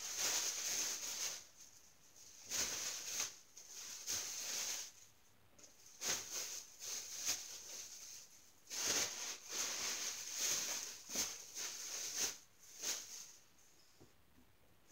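Fabric rustling as clothes are handled and pulled on, in irregular bursts of one to two seconds with short quiet gaps between.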